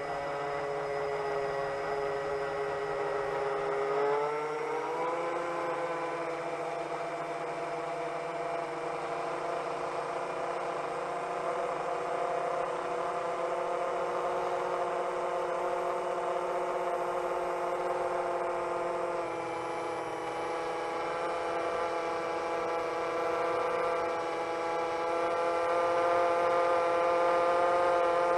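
Electric motors and propellers of a 7-inch long-range FPV quadcopter whining steadily in flight, with a stack of pitched tones. The pitch rises smoothly about four seconds in as the throttle is raised, and climbs a little again about two-thirds of the way through.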